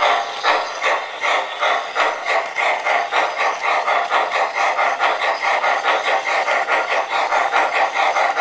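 Steam-exhaust chuffing from an MTH O-gauge Climax logging locomotive's onboard sound system, an even beat that quickens from about two to about three chuffs a second.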